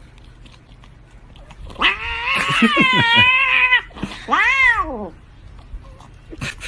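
A domestic cat yowling: one long wavering call about two seconds in, then a shorter call that rises and falls.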